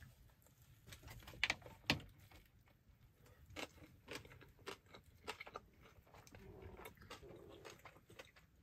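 A man biting into and chewing a meatball musubi of sticky rice, meatballs and nori: faint, irregular wet mouth clicks, picked up close by a clip-on microphone.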